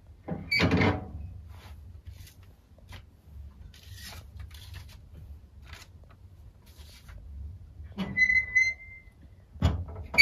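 Cast-iron wood-burning stove door being opened, with clicks and paper rustling as letters are pulled out from inside. About eight seconds in there is a short squeak, and the door clunks shut near the end.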